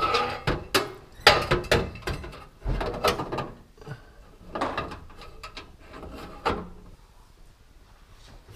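Sheet-metal wiring cover being slid and pushed into place inside a stainless steel range hood housing: a string of scrapes and knocks that dies down about seven seconds in.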